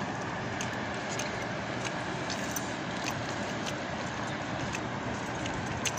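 Steady city background noise, an even hiss-like rumble, with scattered faint clicks.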